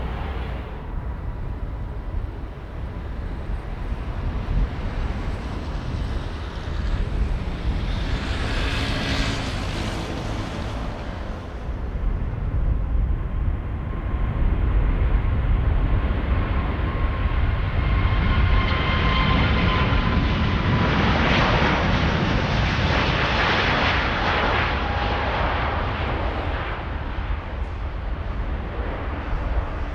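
Airbus A350 jet airliner's Rolls-Royce Trent XWB turbofans running as the aircraft passes: a steady rumble that grows louder partway through, with an engine whine that slowly falls in pitch while the sound is loudest.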